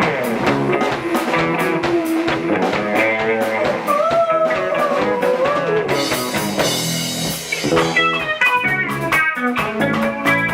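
Instrumental band music: a lead line with sliding, bending notes over bass and a drum kit, with a cymbal wash swelling about six seconds in before plucked notes return.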